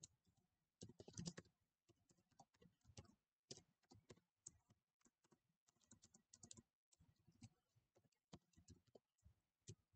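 Faint keystrokes on a computer keyboard, tapped in short irregular runs as a line of code is typed.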